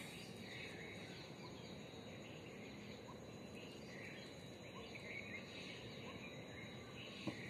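Quiet outdoor background: a steady faint hiss with scattered, distant bird chirps, and a single light click near the end.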